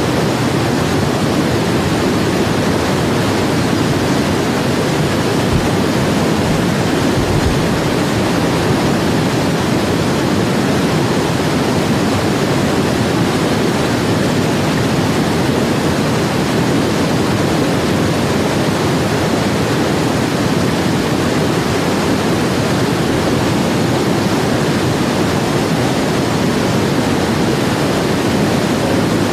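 Whitewater river rapids rushing, a loud, steady wash of churning water.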